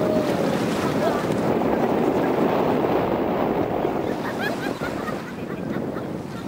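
Wind buffeting the microphone over sea water splashing and lapping around people wading waist-deep, with faint shouts at times.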